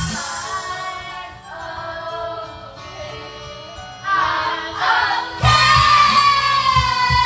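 Karaoke: women singing into a microphone and along with it over a pop backing track. The beat drops out at the start, leaving held notes and voices, and comes back loud about five and a half seconds in.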